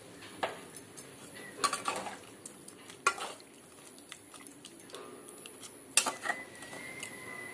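Metal spatula stirring a watery chicken and potato curry in a metal kadhai, knocking and scraping against the pan in irregular clanks, the loudest about six seconds in.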